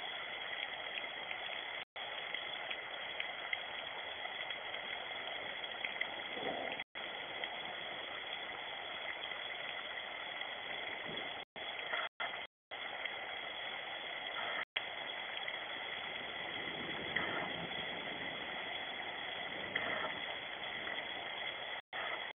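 Steady rain falling, an even hiss heard through a security camera's small, narrow-band microphone. The sound drops out for an instant several times.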